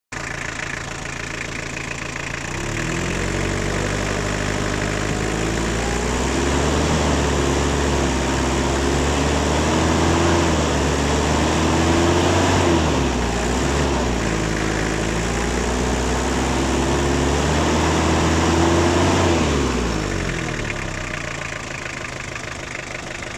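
Toyota 2L 2.4-litre four-cylinder diesel engine idling, then revved by hand at the injection pump about two and a half seconds in, held at raised, unsteady revs, and let fall back to idle near the end. The mechanic puts its trouble down to both the injection pump and the injector nozzles.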